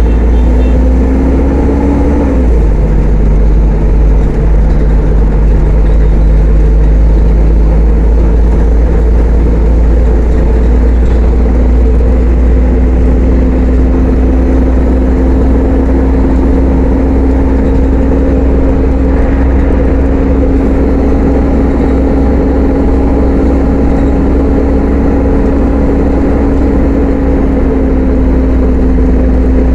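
Mercedes-Benz O500-UA articulated bus's diesel engine pulling under way. The engine note climbs and then drops about two and a half seconds in as the ZF automatic gearbox changes up. After that it settles into a steady heavy rumble with an even whine.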